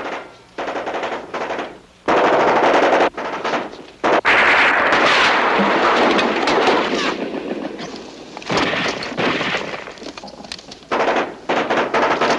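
Rapid bursts of machine-gun fire, several long bursts one after another with short pauses between them, heavier in the first half.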